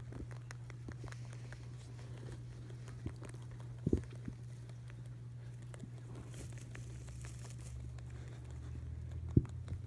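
Baby Holland Lop rabbits munching and rustling hay: a patter of small crunches and crackles over a steady low hum, with a knock about four seconds in and a sharper one near the end.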